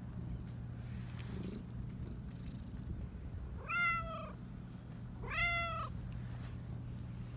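Persian cat meowing twice, about a second and a half apart, each meow high-pitched and rising then falling.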